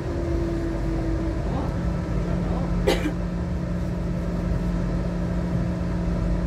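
Inside a Metrovalencia Line 1 train: a steady low rumble with an electric hum that drops to a lower pitch about a second and a half in, and a brief sharp knock near the middle.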